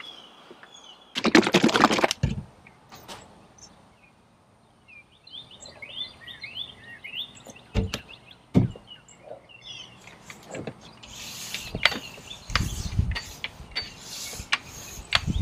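Small birds chirping in the background, with a loud rustle about a second in and scattered knocks and handling taps as a polisher and a bottle of compound are handled on a fiberglass boat deck. No polisher motor is running yet.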